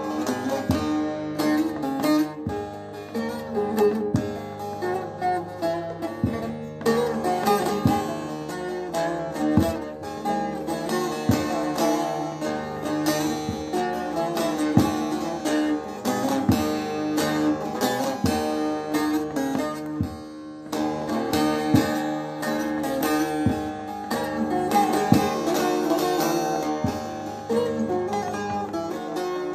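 Bağlama (Turkish long-necked saz) played solo: a busy run of plucked notes over steady ringing drone strings, an instrumental interlude between sung verses of a Turkish folk song.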